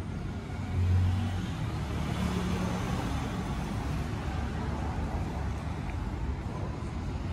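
Road traffic from a nearby street: a steady low vehicle rumble that swells about a second in as a vehicle passes.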